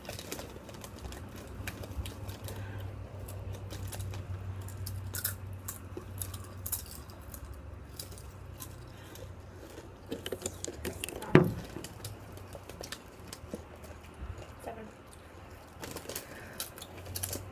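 Crunchy spicy rolled tortilla chips (Doritos Dynamite) being chewed by two children: irregular crisp crunches over a steady low hum, with one sharper, louder crack about eleven seconds in.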